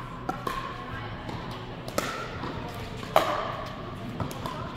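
Pickleball paddles striking a hard plastic ball in a rally: several sharp pops, the loudest about three seconds in, each ringing briefly in a large hall.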